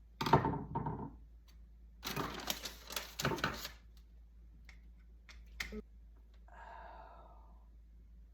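Clicking and rattling of small hand tools on a wall light switch, in a loud short burst at the start and a longer run of sharp clicks about two seconds in, then one more click.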